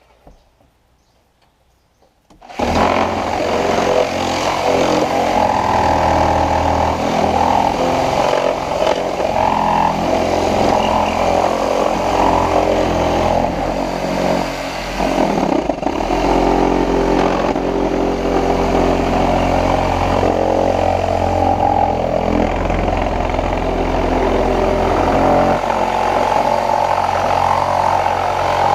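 Tractor engine running steadily, cutting in abruptly about two and a half seconds in after near silence, with a deep, even drone.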